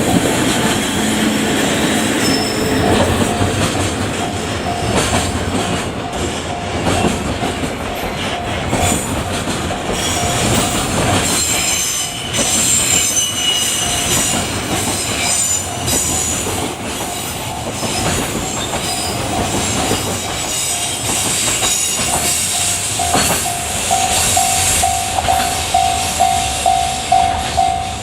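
Container freight train rolling past a level crossing, its wheels clattering over rail joints with some high wheel squeal. The crossing's warning bell rings steadily at about two strikes a second and stops at the very end.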